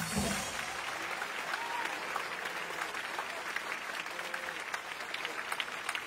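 Circus audience applauding, a steady patter of many hands clapping, as the act's music cuts off just after the start.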